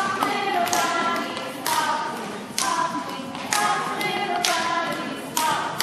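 A group of adults and young children singing a children's action song together, with a sharp percussive hit on each beat, just under one a second.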